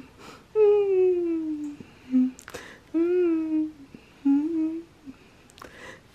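A girl humming a wordless tune in a few drawn-out notes. The first note is long and slowly falling, and the later ones are shorter.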